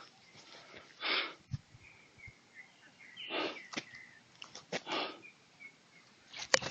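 A hiker breathing hard in several short, noisy breaths, from exertion on a steep, slippery descent, with a few sharp clicks and knocks in between.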